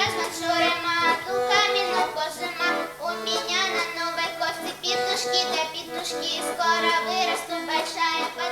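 A children's folk ensemble singing a folk song together.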